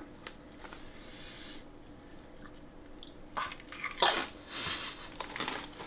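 Turkey-and-gravy flavoured potato chips being bitten and chewed: a few sharp, dry crunches starting about halfway through, after a quiet stretch.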